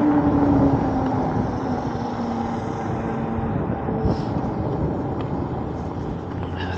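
Wind rushing over the microphone of a moving Eahora Juliet e-bike, with the whine of its electric hub motor falling in pitch over the first three seconds or so as the bike slows. The overall sound fades gradually.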